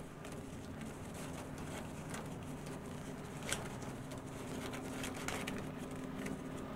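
Paper banknotes counted by hand: a series of soft flicks and rustles, with one sharper snap about three and a half seconds in, over a steady low hum.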